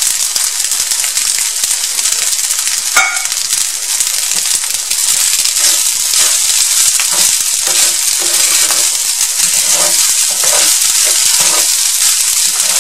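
Fried rice sizzling steadily in a hot pan while it is stirred and tossed with a wooden spoon and a spatula, with short scrapes of the utensils against the pan. There is one sharp knock about three seconds in.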